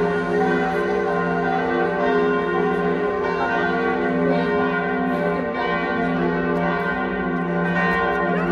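Church bells of the Katholische Hofkirche (Dresden Cathedral) ringing together, several bells overlapping in a continuous peal with a long, even ring.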